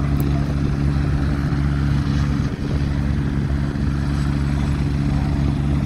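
Helicopter rotor and engine running steadily, a low even hum with no change in pitch.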